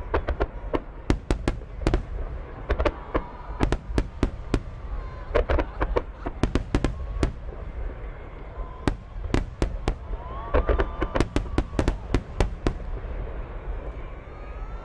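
Fireworks going off: a rapid, irregular run of sharp bangs and crackles over a continuous low rumble.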